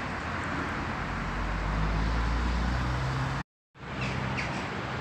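Street noise with a car engine rumbling past, the rumble swelling in the middle and breaking off suddenly about three and a half seconds in. After that, small birds chirp in short notes over the street background.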